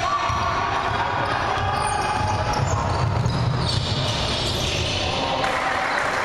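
Basketball game sounds echoing in a sports hall: the ball bouncing on the wooden court amid players' footsteps, with a constant wash of noise.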